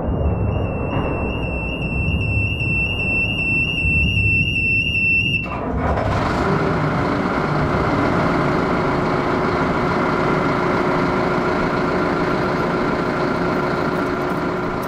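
A high pulsing tone over a low rumble, which cuts off abruptly about five seconds in. A steady mechanical hum with a hiss takes over from there.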